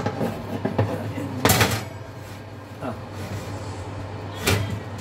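Wire oven shelves being slid and repositioned in their runners: metal racks knock and clatter against the oven several times, the loudest a longer scraping clatter about a second and a half in. A steady low hum runs underneath.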